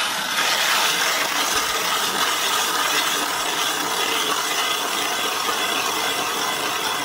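Hand-cranked ice auger boring into lake ice, a steady scraping and grinding of the spiral blades cutting ice chips as the handle is turned.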